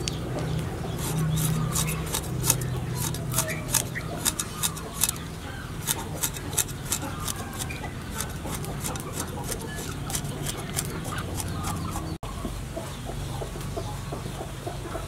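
Cleaver blade cutting through a whole fish and knocking on a wooden chopping board in quick, repeated strokes, the sharpest in the first half. Chickens are clucking throughout.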